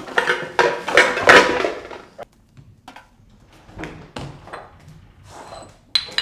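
Glass bottles clinking together and a plastic bag rustling as the bottles are packed into it, then a few soft knocks and a single sharp click near the end.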